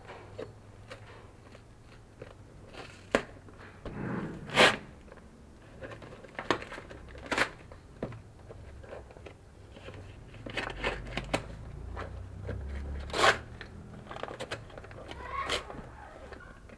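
A small knife slitting packing tape while brown wrapping paper is torn and crinkled off a small package: scattered sharp cracks and crunches between stretches of rustling.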